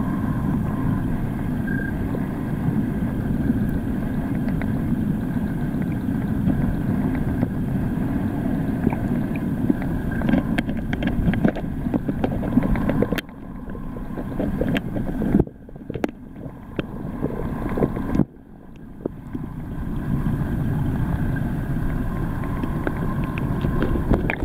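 Muffled water noise from a camera held under water in a tide pool: a dense low rumble with scattered clicks and crackles. It drops away suddenly a few times in the second half, each time building back up.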